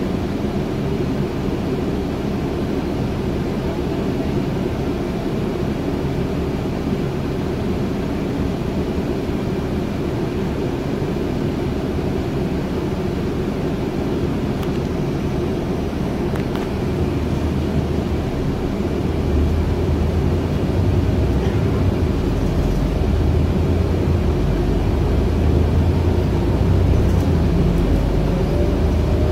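Interior noise of a Scania Citywide 12 LF city bus on the move: a steady rumble of engine and road noise. About two-thirds of the way in, the low engine drone grows louder, and a faint rising whine comes in near the end.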